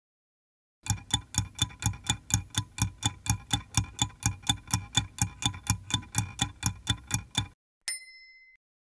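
Stopwatch ticking sound effect, a steady run of sharp ticks at about four a second, then a short ding near the end marking that the countdown time is up.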